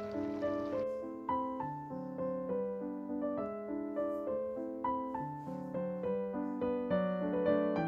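Soft solo piano music, a gentle steady run of notes. For about the first second a water hiss lies under it, then cuts off.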